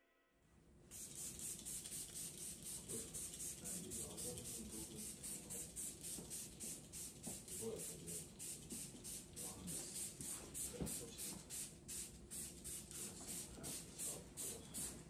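Hands scrubbing a lathered scalp in a shampoo: a rhythmic wet rubbing of quick, even strokes, several a second, starting about a second in.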